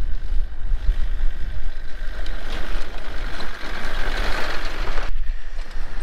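A Land Rover Defender 4x4 drives up a dirt track, its engine and tyres getting louder as it approaches, over wind rumbling on the microphone. The sound cuts off suddenly about five seconds in.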